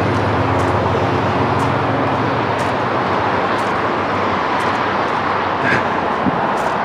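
Footsteps on a dry dirt trail, a faint crunch about once a second, under a loud steady rushing noise; a low hum in the noise fades out about two seconds in.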